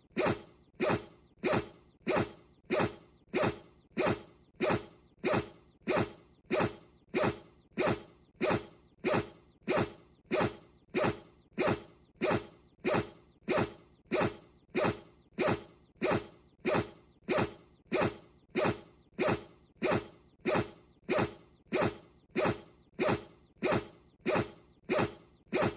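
Bichon frise sneezing over and over, short sharp sneezes at an even pace of about three every two seconds.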